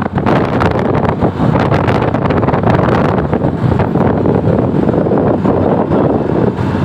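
Loud road traffic noise from passing vehicles, with wind buffeting the microphone.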